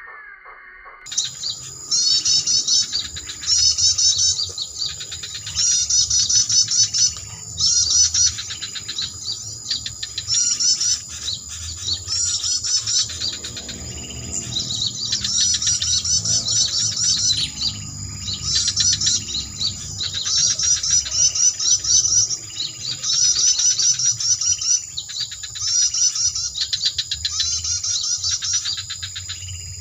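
A bird-lure recording of small birds' rapid high chirping songs, played from an MP3 player. Short trilled phrases repeat every second or two over a steady high whine.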